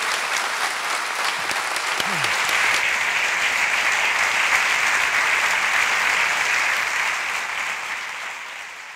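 Audience applauding steadily, many hands clapping at once, then fading out near the end.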